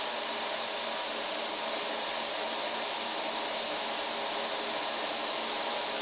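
Steady hiss from an industrial ultrasonic cleaning tank running, with a faint hum beneath it.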